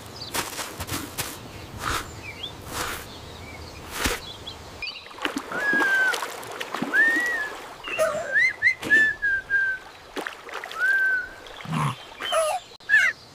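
Water splashing, with a series of short whistled chirps that rise and then fall, about half a dozen between five and eleven seconds in.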